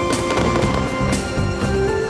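Aerial fireworks shells bursting, several sharp bangs through the two seconds, over loud steady music.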